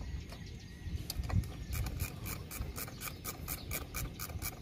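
Hand tool working on the bolts of a Cessna 208B Grand Caravan wheel's brake assembly during a brake lining change: a steady run of short rasping clicks, about six a second, that starts a little under two seconds in, over a low rumble.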